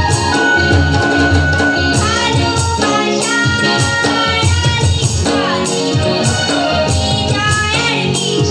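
Live Bengali song performance: a woman singing over tabla drumming, with held harmonium and keyboard tones underneath.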